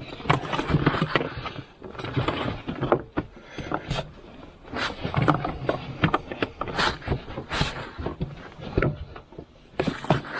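Plastic engine air box being pushed and pried loose by hand: irregular clicks and knocks as its tabs and the intake tube give, with rubbing and rustling of plastic between them.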